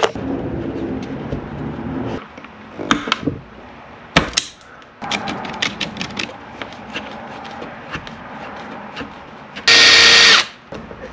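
Cordless drill/driver running in one short burst near the end, driving in a screw for a cable clamp on the solar wires. Before it, clicks and rustling of wires and tools being handled.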